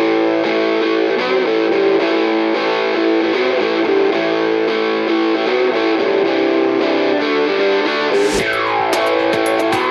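Background rock music led by a distorted electric guitar. A little past eight seconds in it changes, with a sweeping effect that falls in pitch and then rises, over a steady beat.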